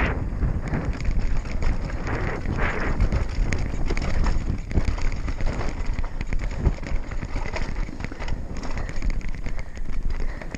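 A 2016 GT Fury World Cup downhill mountain bike riding fast down a dirt trail: tyres crunching over dirt and small rocks with a constant patter of rattles and knocks from the bike, over a steady rumble of wind on the microphone.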